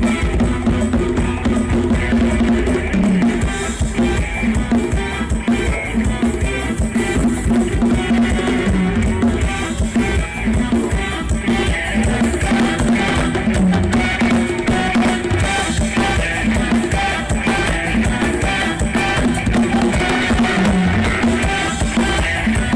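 Music with a drum kit and heavy bass played loud through a large outdoor PA system of line-array speakers and subwoofers.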